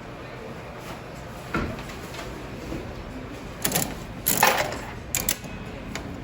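Clacks and knocks of hands working a coin-operated vending machine: a knock about a second and a half in, a louder clatter around four seconds in, then two quick clicks.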